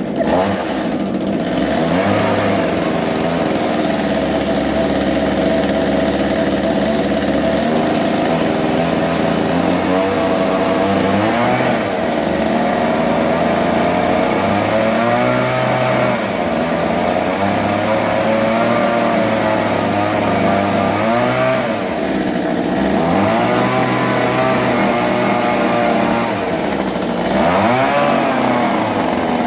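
Two-stroke gas chainsaw running steadily. Its pitch swoops down and back up about five times as the revs change.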